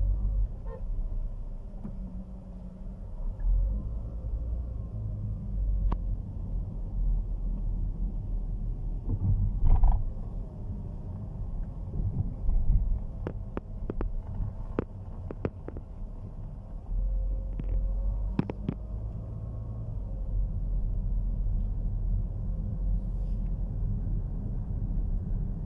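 Low, steady rumble of a car driving, heard inside the cabin, with a handful of short sharp clicks about halfway through.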